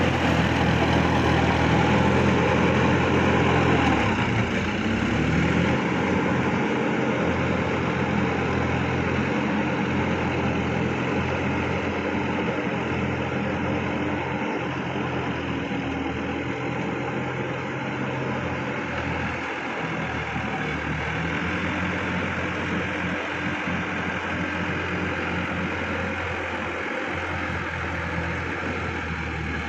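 Sonalika DI-50 RX tractor's diesel engine running under load in wet mud. About four seconds in, the revs dip and recover. It then runs steadily and a little quieter as the tractor moves away.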